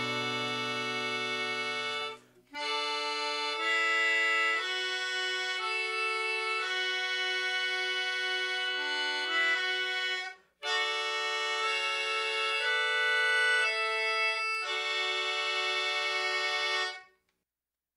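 Background music: held chords on a reed instrument such as an accordion or harmonica, changing every second or so. It breaks off briefly twice, about two and ten seconds in, and stops abruptly shortly before the end.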